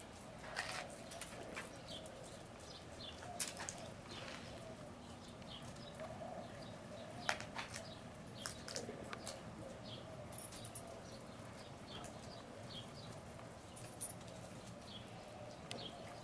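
Faint, irregular clicks and crunches, box turtles biting into dry dog food kibble on concrete.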